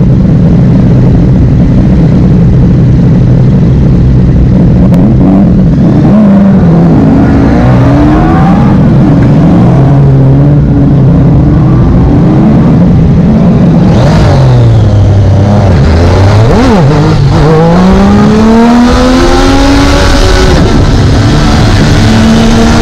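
2017 Triumph Daytona 675R's 675 cc inline-three engine, loud and close on the bike. It idles steadily for about five seconds, then the revs rise and fall through several gear changes as the bike pulls away. They drop low about two-thirds through, then climb steadily near the end.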